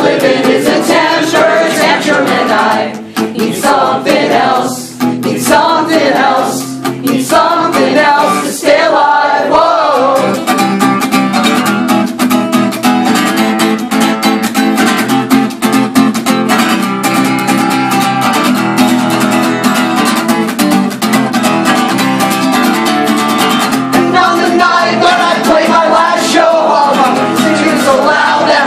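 Live acoustic guitar being strummed, with singing without clear words over it for roughly the first ten seconds. The guitar then plays on alone, and the singing comes back near the end.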